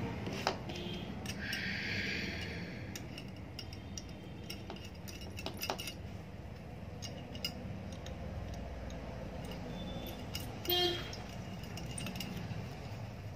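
Small metal washers and nuts clinking and clicking as they are picked up and set onto the studs of an electric iron's soleplate, with a brief scrape about two seconds in and a short rattle near the end, over a steady low hum.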